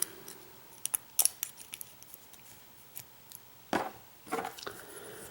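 A few scattered small metallic clicks and taps: a pin-tumbler lock and its tools being handled while the lock is taken apart.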